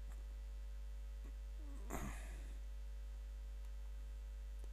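Steady low electrical hum with a brief, short noise about two seconds in.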